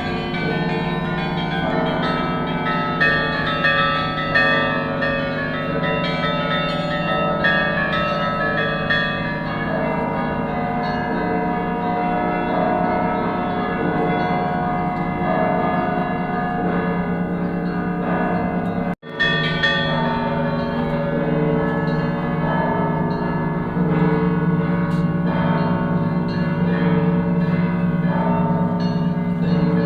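Russian Orthodox church bells rung together in a continuous peal, many bells of different pitches struck in quick succession over the lasting tone of the big bells. There is a split-second break about two-thirds of the way through, then the ringing goes on.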